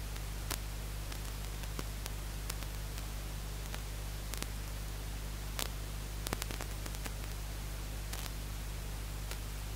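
Steady recording hiss over a low electrical hum, with scattered faint clicks and crackles.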